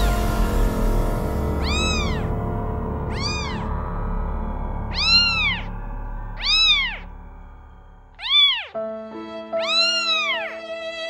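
A cat meowing repeatedly, six rising-and-falling meows about one and a half seconds apart, over background music.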